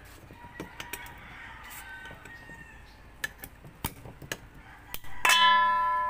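Stainless steel mixing bowl being worked with a wooden spatula: a few light knocks and taps, then about five seconds in a loud clang that leaves the bowl ringing with a bell-like tone that slowly fades.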